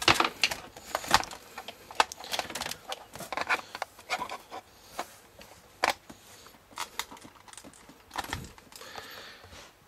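Irregular clicks, knocks and rustling of a power cable and plug being handled and pushed into a socket.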